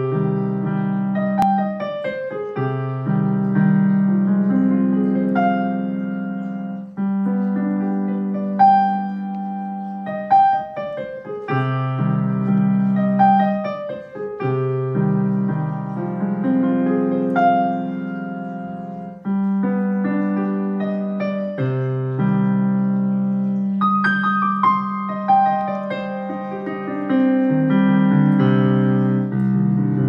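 Casio digital piano playing a waltz: a melody over held left-hand chords that change every couple of seconds.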